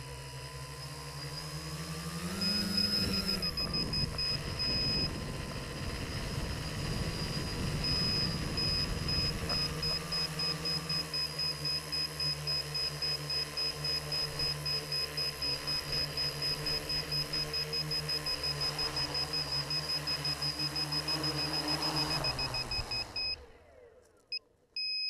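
Electric motors and propellers of a small quadcopter whirring, heard from its own onboard camera: the pitch rises sharply a few seconds in, holds steady while it flies, then cuts off suddenly as it sets down on the grass near the end. A high, thin electronic beeping runs along with the motors, and a few short beeps follow once they stop.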